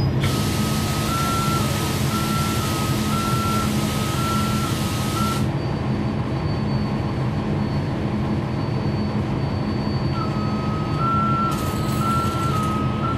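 Heard on board a 2011 NABI 40-SFW transit bus: its Cummins ISL9 diesel runs steadily while a warning beeper sounds twice. The beeper's tone steps between two close pitches. The first time it comes with a hiss of air lasting about five seconds. The second time starts about ten seconds in, with a shorter hiss of air near the end.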